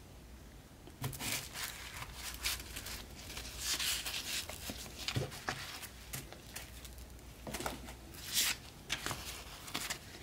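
Tissue paper and paper sticker sheets rustling and crinkling as they are handled and laid down, with a few light taps of paper on the mat. It starts about a second in.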